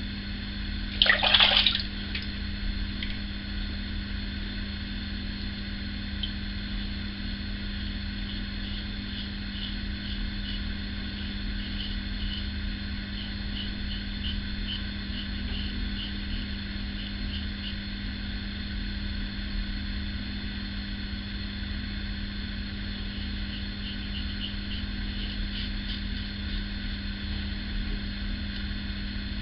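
Single-edge safety razor scraping through lathered stubble in short, faint strokes over a steady low hum. About a second in, a brief loud burst of running water.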